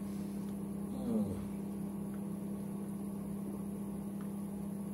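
Microwave oven running with a steady low hum, heating a dish on medium power. About a second in, a short sound falls in pitch over it.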